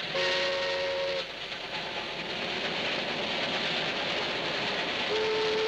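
Steam train running past with a steady rushing noise. Its chime whistle blows a roughly one-second blast near the start and starts a second blast near the end.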